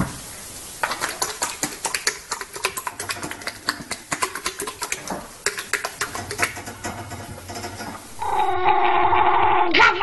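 A horse flapping its lips rapidly as it shakes its head, a fast irregular run of smacking clicks. Near the end a small long-haired dog starts a long, steady-pitched cry.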